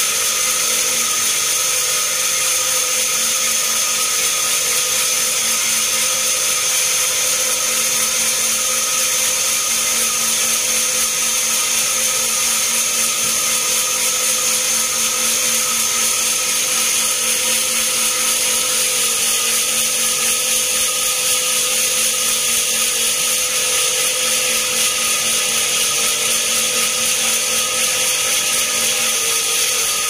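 Bandsaw sawmill running steadily with a constant high whine while the log sits on the carriage, not yet cutting.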